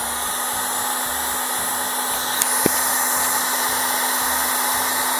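Topcraft electric heat gun blowing steadily, its fan noise carrying a low steady hum, as it shrinks heat-shrink tubing over soldered battery-pack connections. Two faint ticks come about halfway.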